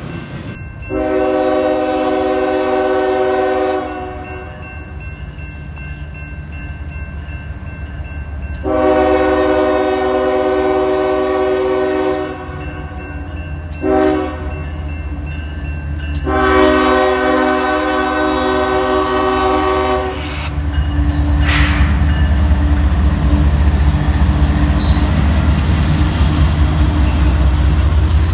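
Diesel freight locomotive's multi-tone air horn sounding the grade-crossing signal: long, long, short, long. Then the CSX lead locomotive passes close by, its diesel engine loud and low along with the rolling of the train.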